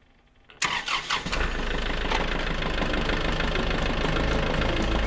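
Kubota L4701 compact tractor's diesel engine running steadily with a deep hum. It comes in suddenly about half a second in, with a clattery first moment before it settles.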